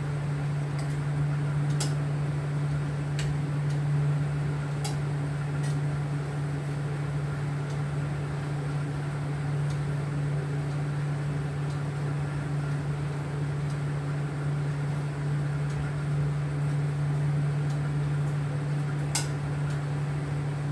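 A steady low motor hum, such as a fan running, with a few faint clicks.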